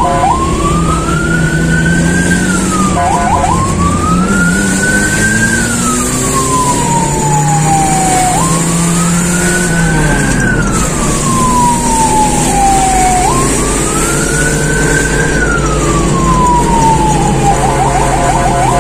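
Fire engine's electronic siren: a fast yelp that switches to a slow wail rising and falling four times, then back to the fast yelp near the end, with the vehicle's engine running underneath.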